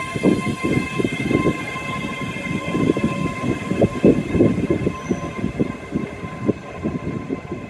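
ScotRail Class 385 electric multiple unit pulling out past the platform: its wheels clatter over rail joints in a quick, irregular run of knocks, over a steady high electric whine.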